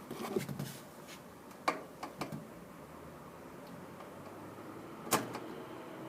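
Light handling noise and a few sharp clicks, the strongest just under two seconds and about five seconds in, from working wires and push-on spade terminals of a hard start capacitor kit onto an air conditioner's run capacitor.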